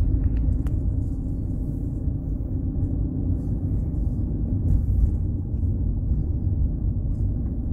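Car driving along a road: a steady low rumble of engine and tyre noise, with a few faint clicks near the start.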